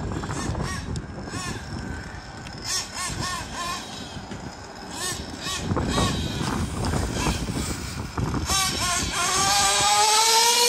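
Kyosho Inferno NEO ST 3.0 nitro RC car's small glow engine revving in quick rises and falls as the throttle is worked. About eight seconds in it goes into one long rising wail, growing louder as the car accelerates flat out.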